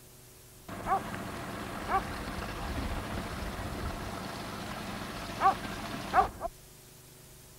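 An animal's short high yelps, two near the start and two near the end, over steady background noise. The noise begins abruptly and cuts off suddenly.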